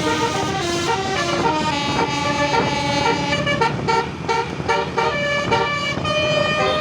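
Bus 'telolet basuri' multi-trumpet air horn playing a tune: several steady horn notes sound together and change pitch in quick steps, over vehicle noise.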